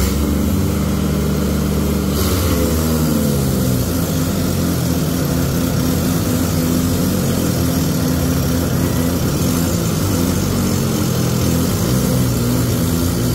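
Several diesel farm tractors running hard under heavy load, hitched in line to haul a sand-laden trolley stuck in soft ground. The overlapping engine notes shift in pitch as the revs change, about two seconds in and again near the end.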